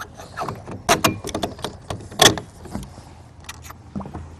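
Irregular small metal clicks and clinks of a washer and wing nut being fitted onto the bolt of an aluminium lee board bracket, the loudest about a second in and again just after two seconds.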